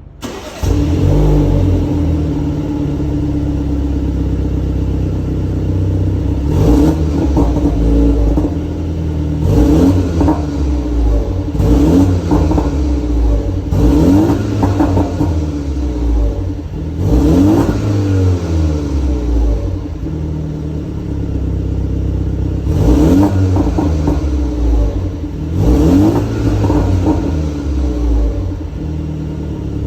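2021 BMW 330Li's stock exhaust, its turbocharged four-cylinder idling and revved in short blips about seven times, each rise and fall in pitch followed by crackles and pops as the revs drop.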